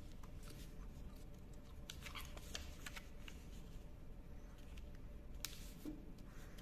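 Faint rustling and crackling of a sheet of origami paper as it is folded in half and its crease pressed flat by hand. There are scattered sharp crackles, a few together about two seconds in and the sharpest about five and a half seconds in.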